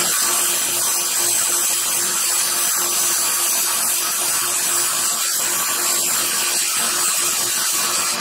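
Belt sander running with a steel cold chisel held against the abrasive belt, a steady grinding hiss over the motor's hum as the chisel head is dressed.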